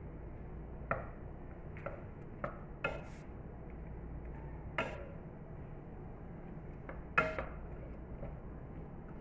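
Metal utensil clinking and knocking against a cooking pan, about ten irregular clicks with the sharpest about seven seconds in, over a steady low hum, while onion, garlic and ginger dry-roast in a little oil.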